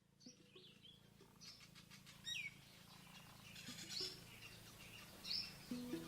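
Faint bird calls: short high chirps every second or so, with one call sliding downward in pitch about two seconds in. Music begins just before the end.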